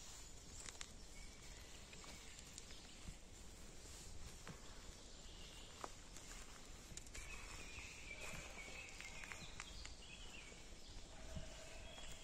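Faint footsteps on a forest path with quiet woodland ambience, and faint short bird chirps in the second half.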